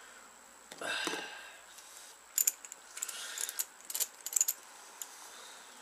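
Small metal parts of a steel puller set, its nuts, bolts and arms, clinking and jangling as they are handled, in a few short clusters of sharp clicks.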